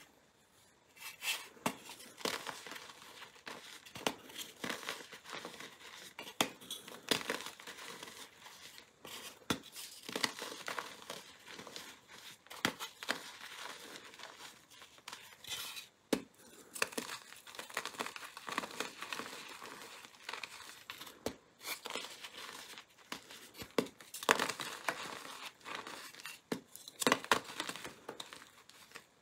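Blocks of gym chalk, coated in coloured powder and glitter, being squeezed and crumbled by hand: dry, irregular crunching and crackling with sharp snaps as pieces break, starting about a second in.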